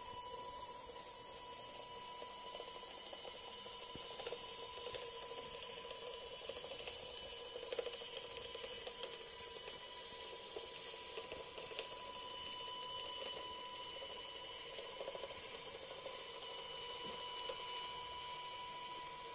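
Small electric motor and gearing of a homemade LEGO-compatible monorail engine, run on a 9 V battery, whining steadily with a light rattle as it travels along the plastic monorail track. A few short clicks come through, the sharpest about halfway.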